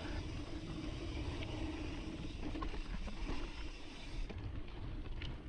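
Intense Sniper cross-country mountain bike rolling down loose, dusty dirt singletrack. The onboard camera mic picks up a steady, fairly quiet rumble of tyre noise and wind.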